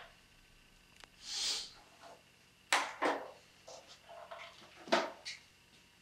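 Toiletry bottles being handled on a bathroom vanity counter: a few sharp clicks and knocks as items are picked up and set down, with a short hiss about a second and a half in.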